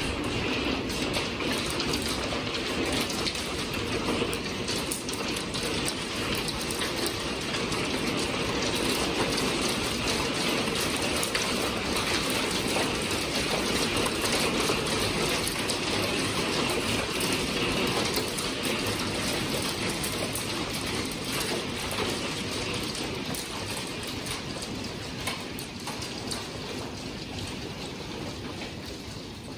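A hail squall: hailstones and rain pelting the patio, deck and window in a dense, steady crackling patter. It eases off over the last few seconds.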